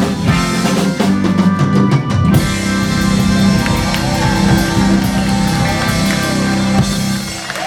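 Live rock band playing the instrumental close of a song: drum kit and electric guitar over steady bass. From about two seconds in, a bright cymbal wash fills the top. The bass and drums drop away near the end.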